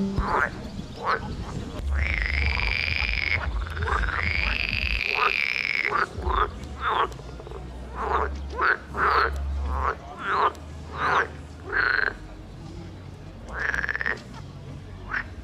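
Frogs croaking: a string of short, loud croaks at irregular intervals, with two longer drawn-out calls in the first six seconds.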